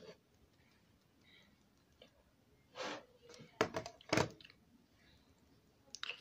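A few short, sharp clicks and knocks, with a brief rustle about three seconds in.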